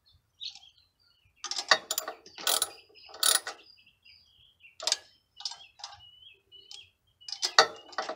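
Socket ratchet wrench clicking in several short bursts with pauses between, as a nut on the air-filter base plate of a Briggs & Stratton generator engine is tightened.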